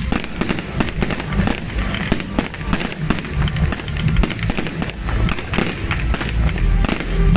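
Fireworks display: many sharp cracks and bangs in quick succession as ground-fired comets and fountains go up and aerial shells burst with crackling stars.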